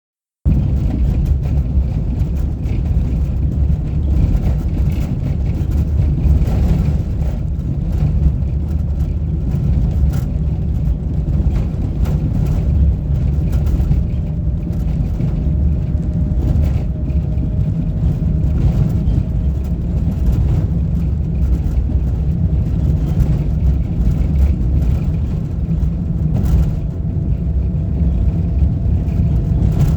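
A motor vehicle travelling at a steady speed: a constant low rumble of engine and road noise, starting half a second in.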